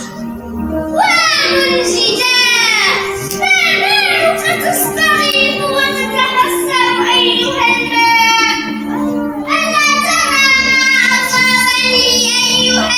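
Children singing a song over instrumental backing music, the voices bending in long melodic phrases.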